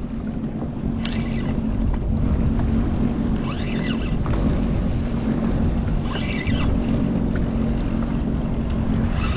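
Sea-Doo Fish Pro jet ski engine idling with a steady hum, under wind noise on the microphone and open-water wash. Short higher-pitched sounds come back about every two and a half seconds.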